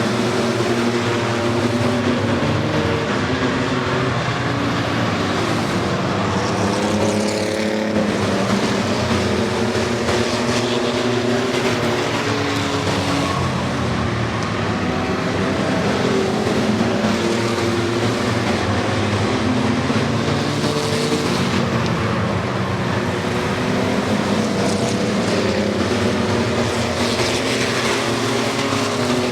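A field of pickup trucks racing on a short oval track, many engines running at once at different speeds, their pitches rising and falling as trucks accelerate and pass, with no let-up in the noise.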